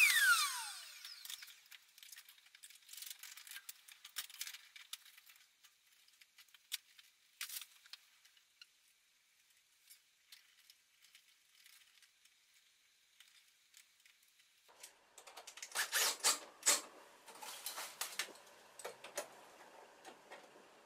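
A cordless drill winding down with a falling whine right at the start, then scattered light clicks and metal clinks of small wire-terminal clamps and pliers being handled, growing busier and louder for the last six seconds.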